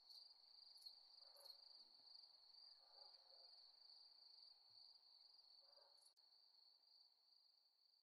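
Near silence, with only a faint, steady, high-pitched trill and a few very soft ticks.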